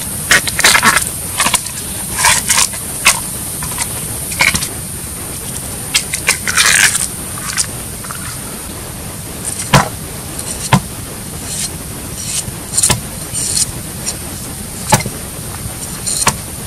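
Husk sheaths being torn and peeled off a fresh bamboo shoot by hand: irregular crackly tearing and scraping, with a few sharp knocks on a wooden chopping board and a cleaver beginning to hack at the shoot near the end. A steady hiss lies under it all.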